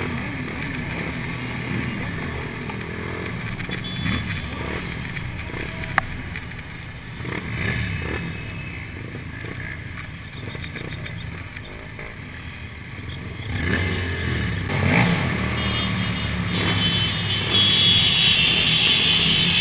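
Motorcycle engine heard from the bike itself, its pitch rising and falling as the rider accelerates and eases off in traffic, with a sharp click about six seconds in. It grows louder in the last few seconds.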